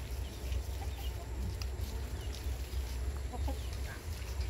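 Faint, short, high-pitched animal calls, chirps or squeaks, scattered over a steady low rumble, with a small cluster of lower squeaks about three seconds in.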